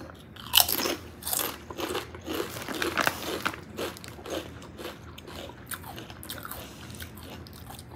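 Two people biting into and chewing Maui Style potato chips: a sharp crunch about half a second in, then a run of irregular crisp crunches that grow fainter toward the end.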